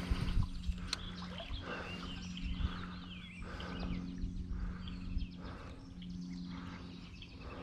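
Birds chirping over a steady low hum, with a soft hiss rising and falling about once a second.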